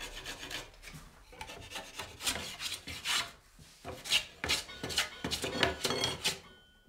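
Wooden window sash being smoothed by hand: a run of short, uneven, dry scraping and rubbing strokes on the wood, made first with a steel blade and then with a wad of wood shavings.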